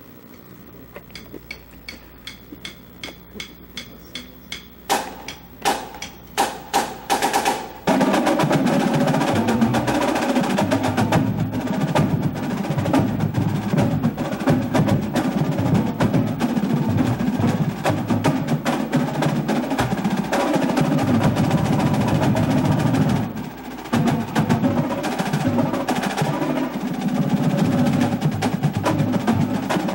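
Marching drumline snare drums playing a triplet-based exercise built on contrasting stick heights. It opens with soft, quick taps, breaks into a few loud single accented strokes about five seconds in, and from about eight seconds in becomes loud, dense ensemble drumming that briefly drops away once in the middle.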